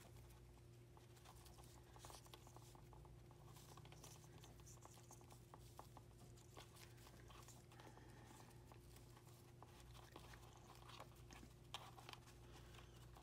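Near silence: a steady low hum of room tone with faint, scattered rustles and small clicks of ribbon being handled and tied into a bow.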